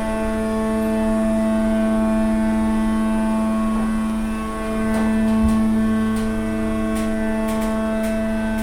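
Platform lift's drive running steadily as the platform travels up, a loud, even, humming drone with a brief dip about halfway through. It sounds bloody knackered, as if the drive is worn.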